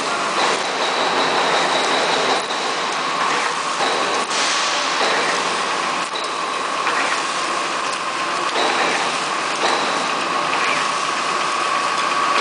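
Bubble film bag making machine running: a steady mechanical clatter under a high whine, with a short knock every couple of seconds.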